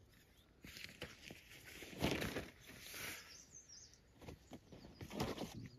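Nylon tent fabric rustling and flapping as the tent's door flap is pushed open and held aside, in uneven bouts, loudest about two seconds in and again near the end.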